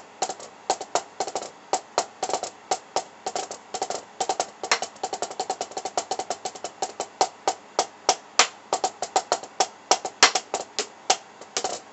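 Drumsticks striking a Donner drum practice pad in a steady run of dry taps, several strokes a second, with quicker flurries mixed in.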